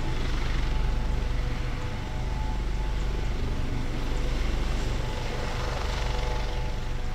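Airbus Helicopters AS365 Dauphin running on the ground with its main rotor turning: a steady low rotor thrum under a constant twin-turbine whine.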